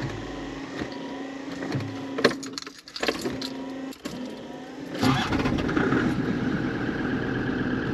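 Land Rover Defender being started: a hesitant, uneven start, then about five seconds in the engine catches and settles into a steady run. The battery "complained for a second" during the start.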